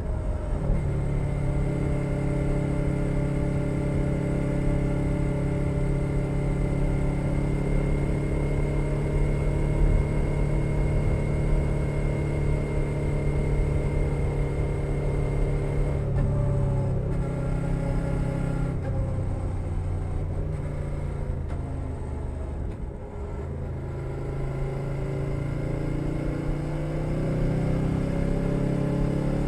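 A 2021 Suzuki SV650's 645 cc V-twin engine running through a Leo Vince Nero exhaust under way, heard close from under the seat. It holds steady revs for about half the time, then changes and eases off with the pitch falling, then picks up and accelerates again near the end.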